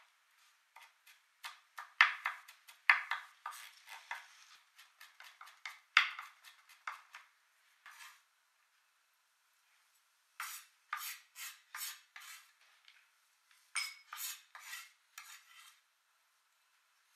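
Cleaver knife chopping garlic on a bamboo cutting board: clusters of quick, sharp knocks of the blade on the wood. The knocks stop for about two seconds past the middle, then resume more slowly at about two a second, then in a faster run.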